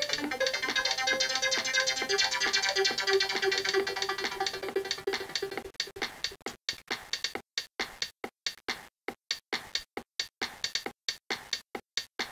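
Background music with a beat. It is full and busy for about six seconds, then thins to short beat hits with silent gaps between them.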